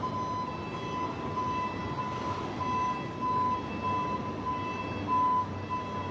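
Fire engine's reversing alarm beeping steadily, about one and a half beeps a second, over the low rumble of the truck's engine running as it backs up.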